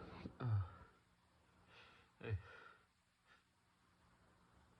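Short sighing exhales from a person between sneezes. One breath falls in pitch right at the start and a second short one comes about two seconds in, then it goes quiet.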